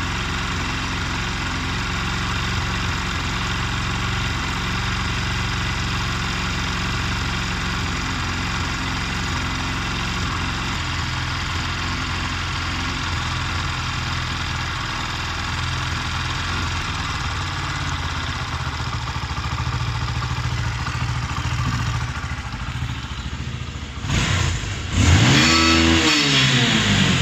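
Bajaj Boxer 150's single-cylinder four-stroke engine idling steadily while the carburettor's air screw is turned to set the idle. About 24 seconds in it is revved, the pitch rising and falling again and louder.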